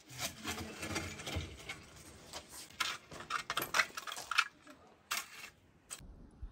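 Metal shovel scraping spent charcoal and ash out of a clay tandoor and tipping it into a metal bucket: an irregular run of scrapes and clinks of charcoal pieces, which stops about a second before the end.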